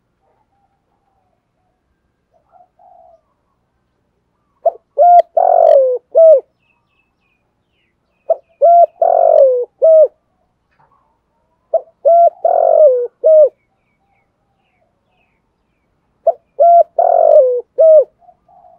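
Male spotted dove cooing its song four times, about every three and a half seconds. Each phrase is a couple of short coos, a longer falling coo and a short final coo.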